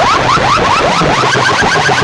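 Two loud DJ sound-box systems playing at once in a competition, a distorted clash of sound. It is a dense stream of short, rising electronic chirps, many a second, like a siren effect.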